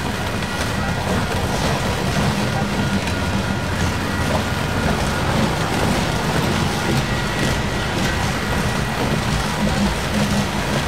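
Freight train of refrigerated boxcars rolling past at close range: a steady rumble of steel wheels on rail, with faint steady high-pitched tones running through it.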